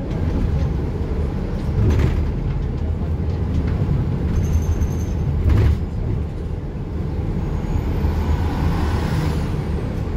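Inside a moving city transit bus: steady engine and road rumble, with a couple of thumps from bumps in the road about two seconds and five and a half seconds in.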